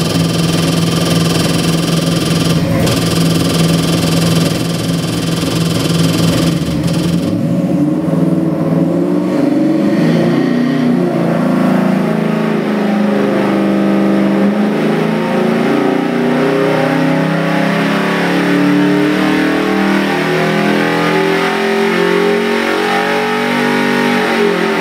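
Ford 427 Windsor stroker small-block V8 with FAST EZ EFI on an engine dynamometer: it idles for about seven seconds, then pulls under load with the revs climbing smoothly to about 5,800 rpm. Near the end the throttle shuts and the sound drops off sharply.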